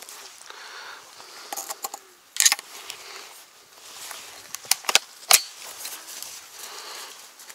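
Sharp metallic clicks and clacks from handling the action of an MP-155 semi-automatic shotgun, coming in a few bunches with the loudest about two and a half and five and a half seconds in.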